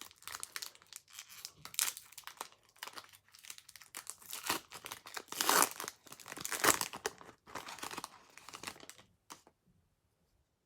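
Foil Pokémon Shining Legends booster pack being torn open and crinkled by hand: a run of irregular crackling and tearing rustles that stops near the end.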